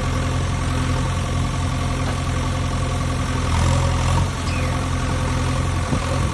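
Steady low motor hum with a few held tones, growing briefly louder about three and a half seconds in.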